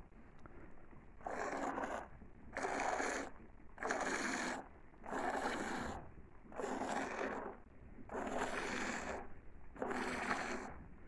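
Goat being hand-milked: milk squirting from the teat into a bowl of frothy milk, each squeeze a short hissing splash, about one every second and a half, seven times.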